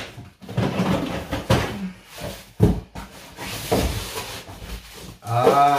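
Cardboard boxes being handled and shifted: rustling and scraping of corrugated cardboard with a few knocks, the sharpest about halfway through.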